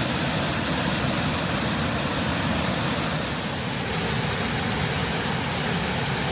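Steady rush of a large waterfall's falling water, an even, unbroken noise.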